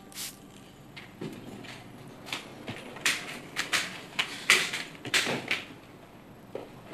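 Tableware being handled on a café table: a string of short, irregular clinks and knocks, loudest from about three to five and a half seconds in.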